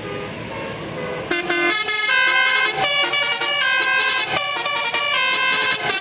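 Bus 'telolet' horn, a set of multi-tone air horns, playing a tune of short stepped notes. It starts loud just over a second in, after a fainter run of notes.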